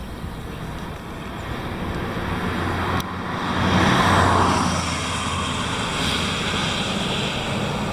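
A road vehicle driving past. It grows louder to a peak about four seconds in and then fades, over a steady low hum.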